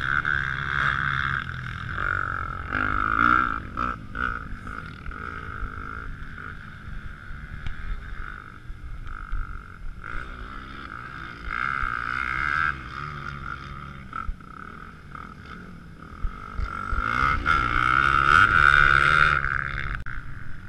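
Dirt bike engines revving up and down on a motocross track, swelling louder as bikes pass and loudest near the end, over a steady high-pitched hum.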